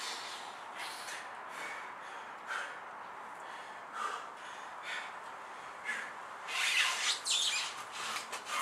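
Intermittent short bird chirps over a quiet outdoor background, with a louder hissing rush about two-thirds of the way in.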